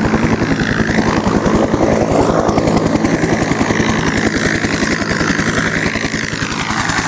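A propeller aircraft's engine running steadily and loudly with a fast, even pulsing; its pitch sags slightly near the end.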